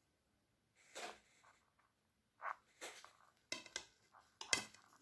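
Faint, scattered handling noises: a few short scrapes and light taps, about one or two a second.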